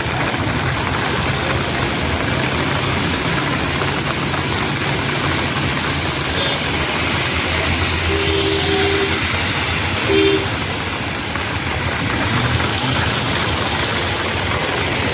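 Steady rain hissing on a wet street, with vehicle engines running low underneath. A vehicle horn honks twice, a longer honk about eight seconds in and a short, louder one about two seconds later.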